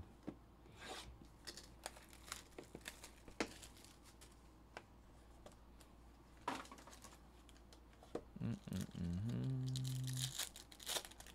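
Cardboard hobby box of trading cards being handled and opened: scattered small taps, clicks and rustles. Near the end a foil card pack is torn open with a crinkling rip, just after a short low hum.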